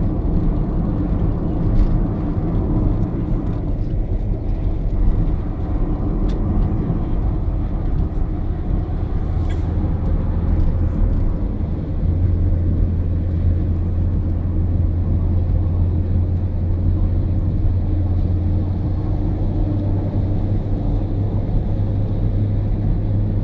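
Steady engine and road noise heard inside a moving vehicle's cabin, with a low drone that grows stronger about halfway through.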